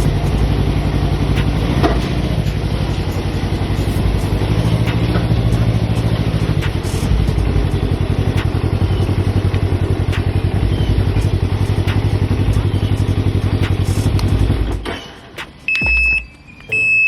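Can-Am Ryker three-wheeler's engine running at a low, steady idle, its note rising slightly about four seconds in, then shut off about fifteen seconds in. A few short high beeps follow near the end.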